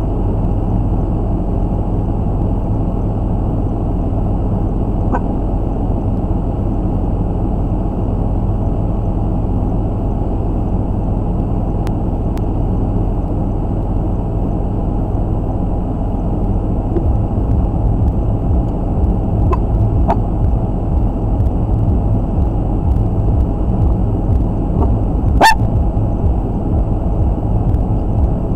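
A semi truck's diesel engine running steadily, heard from inside the cab. A little past halfway the rumble grows slightly louder and rougher. There is a single sharp click near the end.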